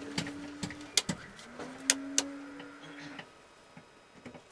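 Sharp clicks of toggle switches being flipped on a Mi-8 helicopter's overhead cockpit panel, about half a dozen in the first two and a half seconds. Under them a steady electrical hum cuts off about a second in, comes back with a slight rise, and stops again about three seconds in.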